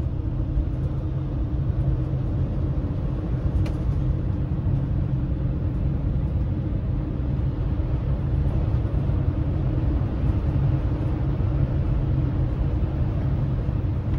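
Thor Quantum CR24 motorhome driving at road speed, its engine and road noise a steady low rumble heard from inside the cab.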